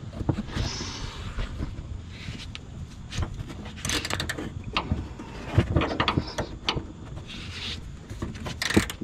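Ratcheting wrench and box wrench working a rusted upper shock-absorber mount nut that has just broken loose: irregular metallic clicks and clinks of the tools on the nut.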